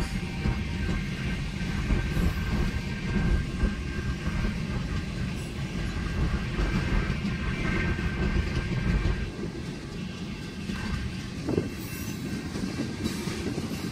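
Freight train cars, autoracks and then tank cars, rolling past a grade crossing at close range with a steady low rumble of wheels on rail. The rumble lightens a little about nine seconds in.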